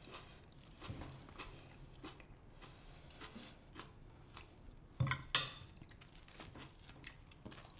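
Faint clinks and scrapes of a fork on a plate during a meal, with a couple of louder clatters of tableware about five seconds in.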